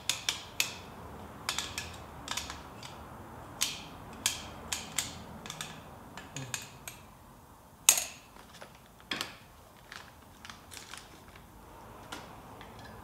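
Irregular sharp metallic clicks and clinks as steel coilover sleeve parts and a strut are handled and fitted together by hand, the loudest about eight seconds in.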